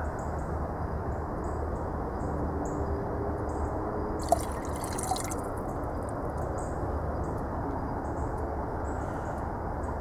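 Ethanol pouring from a glass mason jar into kerosene in a tall PVC pipe, a steady splashing and dripping of liquid, with one small click about four seconds in.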